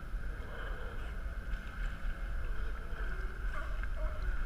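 Water sloshing around a kayak, with wind rumbling on the action camera's microphone, and a crowd of sea lions hauled out on a dock barking faintly, a few short calls near the end.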